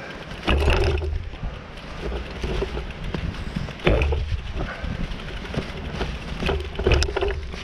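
Bicycle rattling and knocking as it rides down over roots and bumps, with wind rumbling on the microphone; sharp jolts come about half a second in, near four seconds and around seven seconds.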